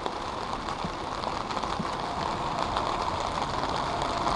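Steady rain falling on the river and on the boat's fabric canopy, a constant hiss with many small drop taps.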